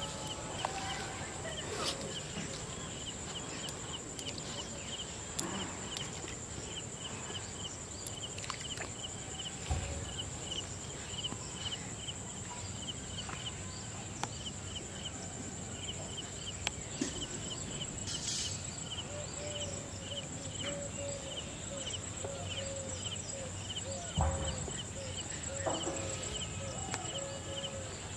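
Rural outdoor ambience of animal and insect calls: a rapid, even chirping runs over a steady high whine, and a lower repeated call starts about two-thirds of the way in. A few soft clicks and knocks are scattered through it.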